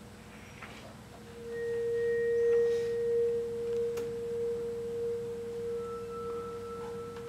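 A steady pure tone that swells in about a second and a half in and is then held, with fainter higher pure tones briefly entering and fading above it.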